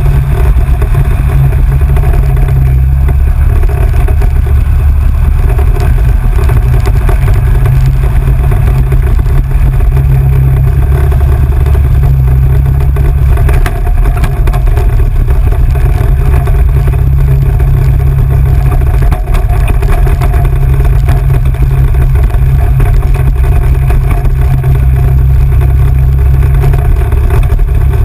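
Engine of an off-road vehicle running steadily under way on a dirt road, loud and constant with a heavy low rumble and no pauses.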